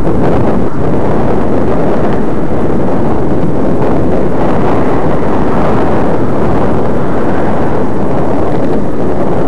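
Loud, steady wind noise buffeting the microphone of a camera moving along the road, a dense hiss that sits mostly in the low and middle range, with no breaks.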